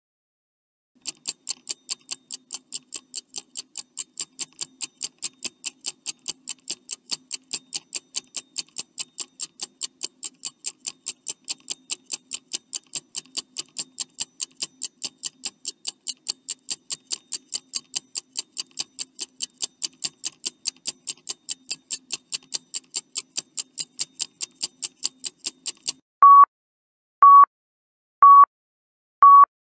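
Countdown-timer sound effect: a clock ticking steadily at about four ticks a second, which stops near the end and gives way to four short, high beeps one second apart as the time runs out.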